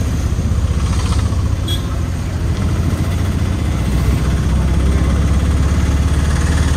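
Autorickshaw engine running steadily as the rickshaw drives along, heard from inside its open passenger cab: a loud, low, fast-pulsing hum.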